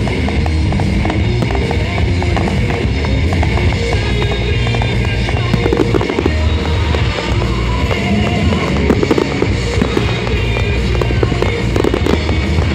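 Aerial fireworks shells bursting and crackling in rapid, overlapping succession over loud music.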